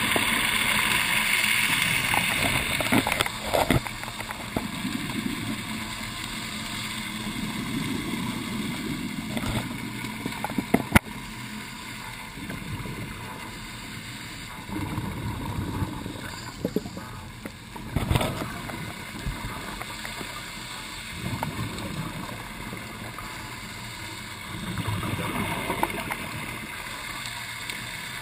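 Scuba divers' exhaled regulator bubbles gurgling in bursts every few seconds, heard muffled through an underwater camera housing, with a denser rush of bubbles at the start. A few sharp knocks, likely on the camera housing, stand out now and then.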